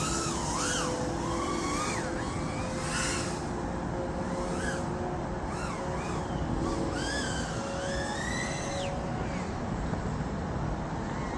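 Micro FPV quadcopter with 1003 14,000KV brushless motors flying, its high motor and prop whine rising and falling in pitch several times as the throttle changes.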